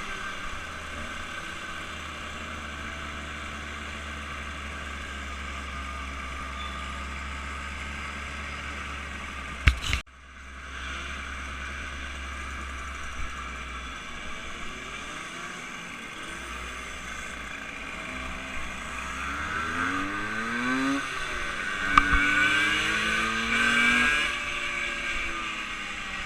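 A vehicle engine running steadily, cut off by a sharp click about ten seconds in. In the second half another engine's pitch rises and falls as it passes, loudest near the end.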